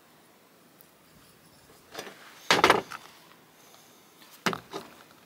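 Small metal parts of an air start valve knocking and clattering as they are handled and greased. There are three short bouts of sharp knocks: a light one about two seconds in, the loudest cluster just after, and another near the end.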